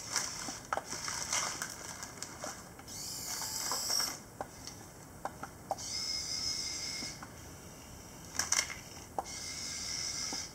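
Small electric motors and plastic gearboxes of a radio-controlled Komatsu PC1250 model excavator whining in four short spells as the boom, arm and bucket move. Between the spells come clicks and crinkles of wrapped candies being scooped and dropped, loudest in a rattle about eight and a half seconds in.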